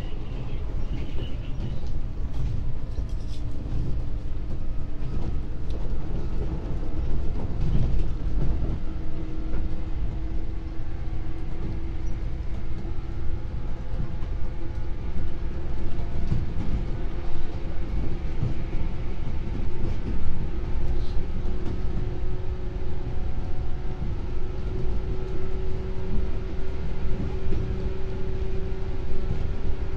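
Onboard running sound of a 113 series electric train: a steady rumble of wheels on rail with a traction-motor hum that climbs slowly in pitch.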